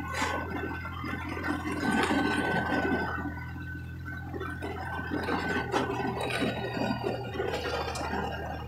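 Vehicle cabin noise while driving: a steady low engine hum with irregular rattling and occasional knocks, loudest about two seconds in and again near the end.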